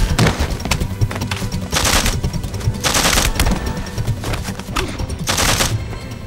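Gunfire sound effects in a staged drama shootout: rapid shots, with three louder, longer bursts of automatic fire about two, three and five and a half seconds in, over dramatic background music.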